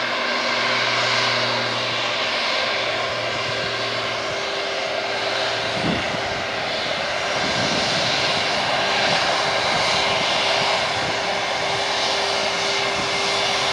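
Jet airliner's twin turbofan engines running up for takeoff: a steady jet noise that turns into a deeper, rougher rumble about six seconds in as thrust comes up and the takeoff roll begins.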